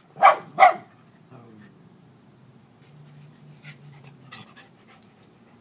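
A puppy gives two short barks in quick succession right at the start, then only faint small sounds follow.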